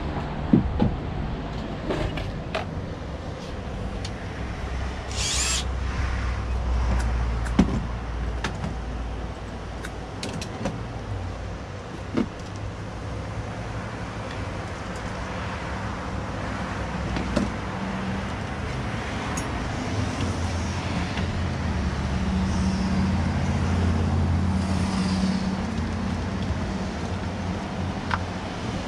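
A low motor hum that wavers in pitch and level and swells toward the end, with scattered clicks and knocks of tools and parts being handled and a short hiss about five seconds in.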